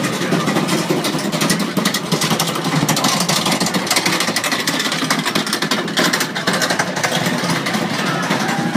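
Loud bonfire-procession street noise: a dense, rapid run of sharp cracks and bangs over steady crowd and street noise.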